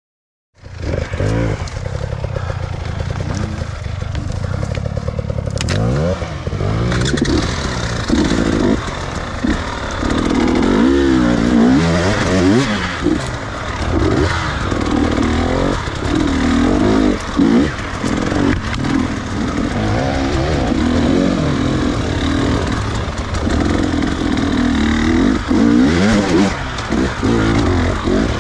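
Two-stroke enduro dirt bike engine revving up and down over and over as it is ridden off-road, with knocks and clatter mixed in. It cuts in abruptly about half a second in.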